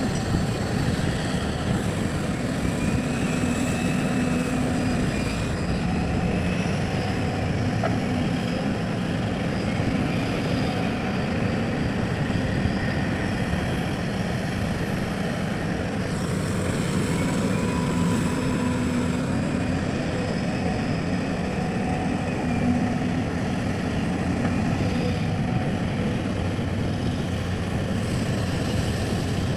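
A hydraulic excavator's diesel engine runs steadily under working load. Its pitch rises and eases every few seconds as it works.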